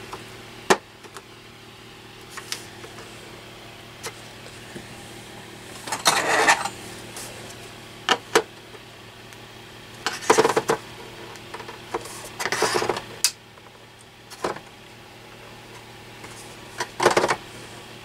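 Plastic back cover of a Dell OptiPlex 9020 all-in-one being pried at its seam with a pry tool: scattered sharp clicks and about four short scraping, creaking bursts as the cover is levered and flexed without coming free.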